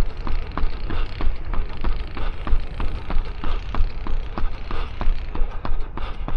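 A runner's footsteps at a tempo-run pace, an even rhythm of about three strikes a second, over a steady low rumble of wind on the microphone.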